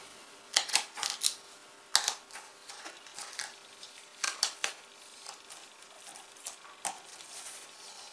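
Adhesive airbrush masking film being peeled off the paper: a dozen or so sharp, scattered crackles, most of them in the first five seconds.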